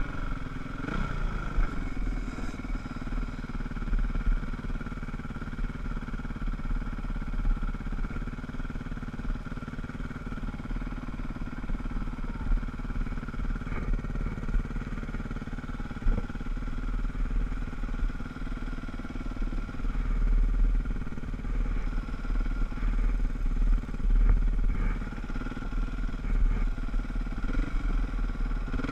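Dirt bike engine running at steady low revs while the bike rolls slowly, with small changes in pitch about a second in and near the end. A steady low rumble of wind on the helmet-mounted camera's microphone lies under it.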